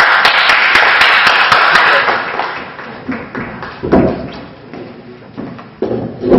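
Audience applauding, dying away after about two and a half seconds. Then a few scattered thumps and knocks as chairs are set down on the stage, the loudest near the end.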